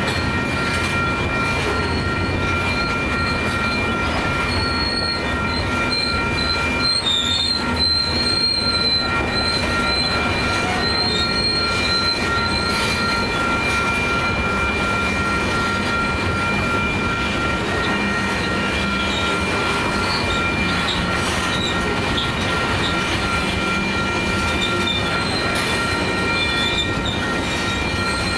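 Tank cars of an oil train rolling past at a grade crossing: a steady rumble of wheels on rail, with high, wavering wheel squeal over it.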